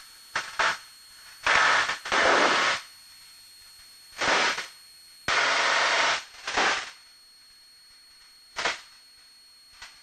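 Irregular bursts of static-like hiss on the cockpit headset and intercom audio. Some are short clicks, some last over a second, with quiet gaps between them and a faint steady high whine underneath.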